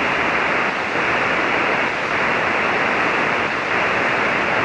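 Steady static hiss from a ham radio receiver on the 40-metre band in single-sideband mode, even and unchanging throughout.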